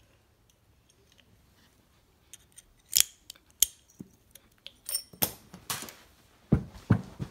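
Several sharp hard-plastic clicks and clacks, then a toy grenade hits a LEGO pirate ship with two heavier thuds near the end as loose LEGO pieces clatter off.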